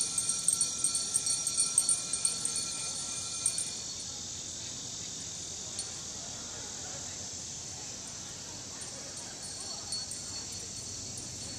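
Steady high-pitched chorus of crickets and other insects on a summer evening. For the first three and a half seconds, chime-like ringing with sharp peaks rises above it, then stops.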